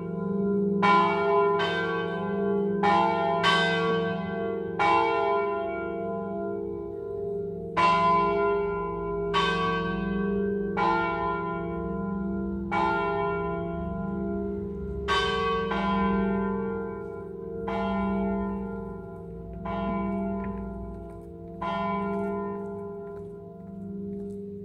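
Three swinging church bells, a peal in F3 flat (cast by De Poli and Clocchiatti), rung in the Friulian swinging style: clapper strikes about every second over a continuous ringing hum. The strikes become sparser and fainter toward the end.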